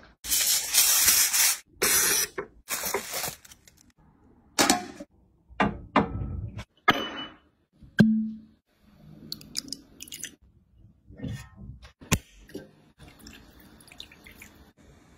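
Coarse salt poured over a whole cooked octopus in three loud hissing rushes, followed by shorter scattered pours. About eight seconds in, a bottle cap gives a single sharp click; quieter crackles follow.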